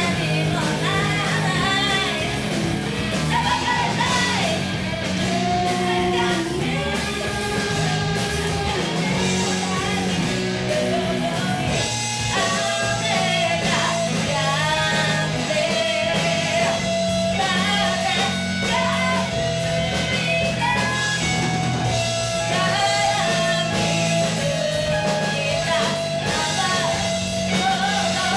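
Live rock band playing, a woman singing over electric guitar and bass.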